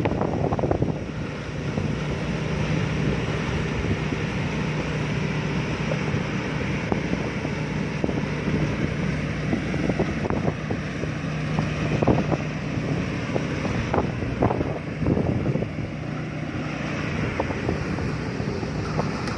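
Rice combine harvester running steadily: a constant engine hum under a broad rush of machinery noise, with scattered knocks and rattles in the second half. Wind buffets the microphone.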